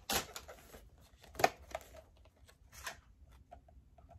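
Paper and card handling noise from a spiral-bound planner being turned over and its cover opened: a few short, sharp taps and rustles, the loudest about a second and a half in, then a few faint ticks.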